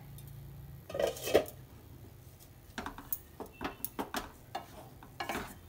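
Wooden spatula stirring and breaking up crumbly cooked rice-flour chakli dough in an aluminium kadhai, scraping and knocking against the pan in a string of short clicks. A louder clatter comes about a second in.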